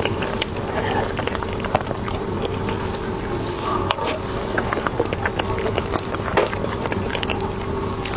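Close-up chewing and wet mouth clicks of someone eating soft cream cheese bread, over a steady background hum.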